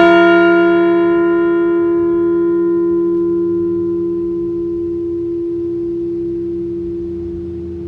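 Liberty Bell replica just struck once, ringing and slowly fading. The higher overtones die away over a few seconds while its low hum tone lingers.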